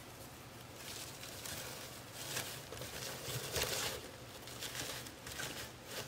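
Faint, irregular rustling and crackling of dried floral moss being pulled apart by hand and pressed into place, a little louder in the middle.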